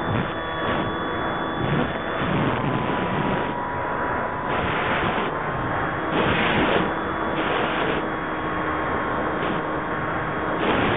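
Electric motor and propeller of an FPV radio-controlled aircraft, picked up by its onboard camera's microphone: a steady whine whose pitch drifts slowly, under a rush of wind noise that swells several times.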